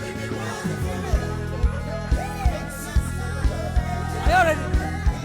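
Reggae-style gospel band music: a kick drum about twice a second over a bass line and guitar chords, with a voice singing a wavering, sliding phrase about four seconds in.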